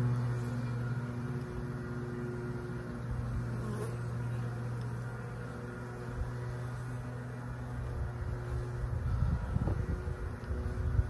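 Steady buzzing hum of a mass of honeybees clustered on a bee package, with a low rumble coming in near the end.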